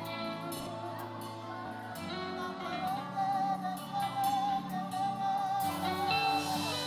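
A woman sings a gospel worship song live with band accompaniment. In the middle she holds one long note with vibrato.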